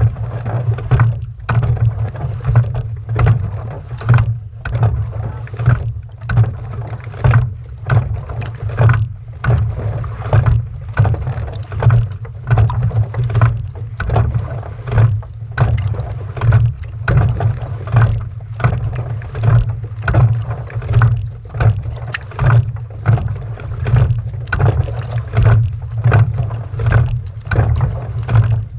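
Rhythmic strokes repeating about every one and a half seconds over a steady low rumble.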